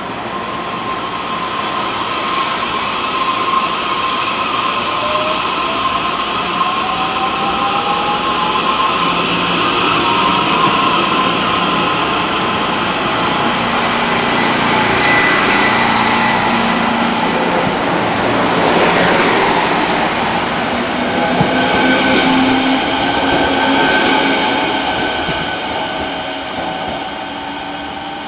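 A TRA EMU600 electric commuter train pulling out of the station and passing close by. Its traction motors whine, rising in pitch as it gathers speed, over the running noise of wheels on rail. The sound grows louder as the cars pass, then eases as the train draws away.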